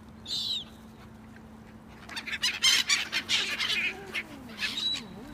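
A flock of gulls squabbling over thrown food. There is one short call about a third of a second in, then a loud burst of harsh squawks and screeches from about two seconds in that lasts well over a second, and another call near the end.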